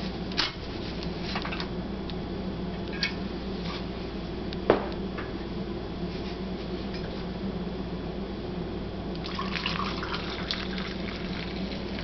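Glass knocks and clinks as the upper bowl of a Pyrex vacuum coffee maker is lifted off the lower carafe and set down, with a sharp clink about five seconds in. About nine seconds in, brewed coffee splashes as it is poured from the glass carafe into a glass cup.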